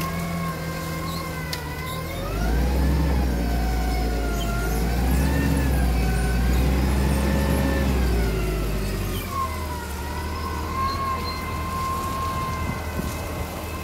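Hyundai 50L-7A propane forklift's engine running as it drives and turns. It revs up and grows louder for about six seconds from two seconds in, then settles back. A whining tone rises and falls with the revs throughout.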